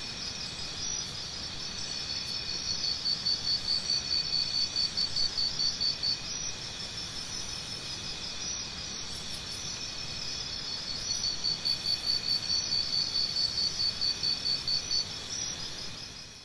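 Insects chirping in a steady, high, pulsing trill of about four pulses a second that swells twice, over a light hiss, fading out at the end.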